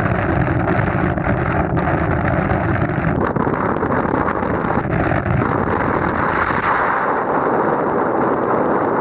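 Gusty wind buffeting the microphone, a loud, continuous rumbling noise. A faint steady hum runs under it for the first three seconds and comes back briefly about five seconds in.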